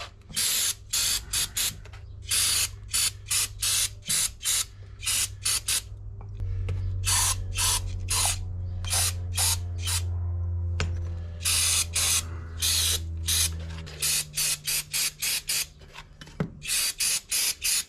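Aerosol carburetor cleaner sprayed in dozens of short hissing bursts, two or three a second, into the passages of a stripped S&S Super B carburetor body and float bowl. A steady low hum runs underneath and is louder for several seconds in the middle.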